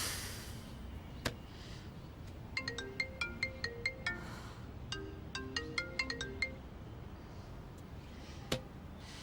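A mobile phone ringtone: a short melody of quick, bell-like notes, played twice with a pause between. A sharp click sounds a little after a second in and another near the end.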